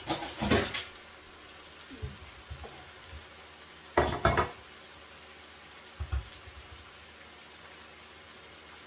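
A steaming pan of tomato-and-bean stew simmering on the hob with a steady low hiss, while kitchen utensils and containers clatter in two short bursts, at the start and about four seconds in, with lighter knocks between.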